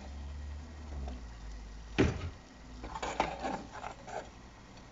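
Metal slotted skimmer knocking and scraping against a metal pot while lifting out fried battered prawns: one sharp knock about two seconds in, then a run of lighter clinks and clatters.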